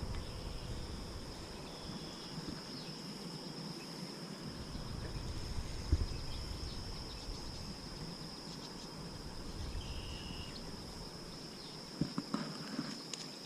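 Insects trilling in one steady high, unbroken tone. A low rumble rises in the middle with a single thump about six seconds in, and a few sharp clicks come near the end.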